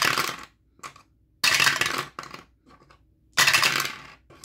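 Pair of dice clattering down through a dice tower, in three rattling bursts about two seconds apart, each dying away quickly.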